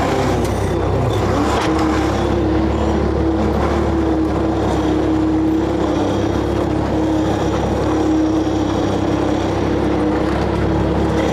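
A motor running steadily at a constant speed, with a wavering hum.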